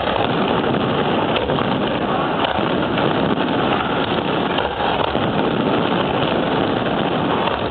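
Fireworks display at close range: a dense barrage of bursts and crackling that merges into a continuous din, with a few sharper cracks standing out.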